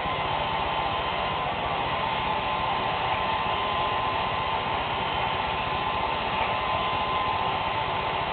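Handheld hair dryer running steadily: an even rush of air with a thin, steady whine.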